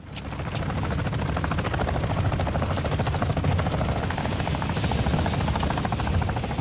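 A steady mechanical drone with a rapid, regular fluttering pulse, fading in at the start and then holding steady.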